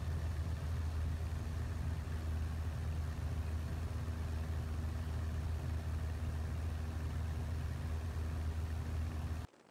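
Aircraft engine drone heard from on board: a steady low hum under rushing noise, unchanging in level, that cuts off abruptly near the end.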